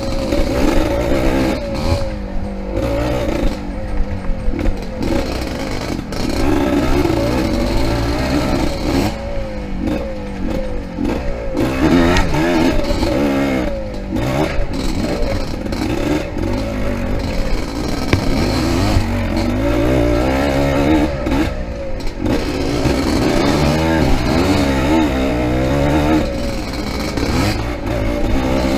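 Yamaha IT 200 two-stroke dirt bike engine being ridden hard off-road, its revs rising and falling over and over, with short drops as the throttle is shut, along with rattling and scraping.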